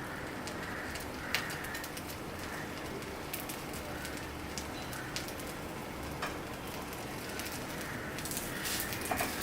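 Dosa batter frying in oil on a hot tawa: a steady sizzle with scattered crackles and pops, a little busier near the end, as the underside crisps before flipping.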